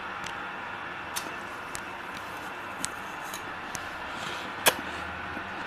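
Freezer frost crunching in a few sparse, sharp cracks over a steady hiss, the loudest crack near the end.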